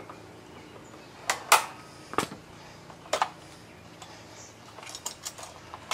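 Pliers clicking and clinking against metal fittings on a mower's small engine as the fuel line clamp is worked loose: a few sharp clicks in the first half, then lighter ticks near the end.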